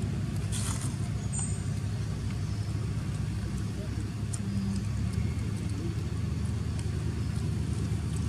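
Steady low background rumble, like traffic or wind noise, with a few faint ticks and clicks over it.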